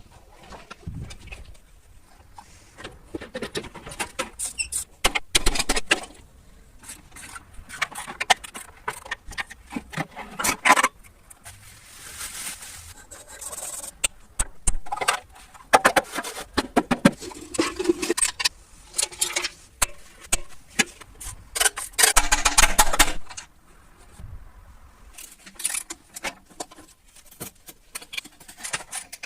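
Hands-on workshop work on parts: irregular clicking, knocking and scraping, coming in bursts, with the longest scraping stretch a little past the middle.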